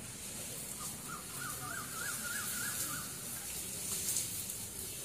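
A bird calling: a thin, quavering whistle that wavers rapidly up and down for about two seconds, starting about a second in, over a steady background hiss.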